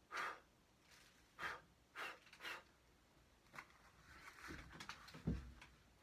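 Four short puffs of breath blown at a hardcover book in the first few seconds, then rustling and one dull thump about five seconds in as the book is laid down and opened.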